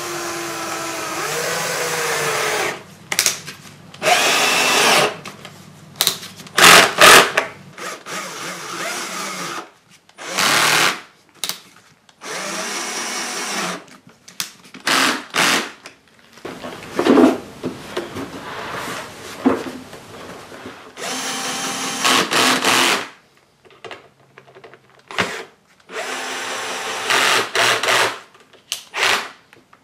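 Cordless drill-driver driving screws into the moulded plastic side of a cool box, running in many short bursts that start and stop, some with a rising whine.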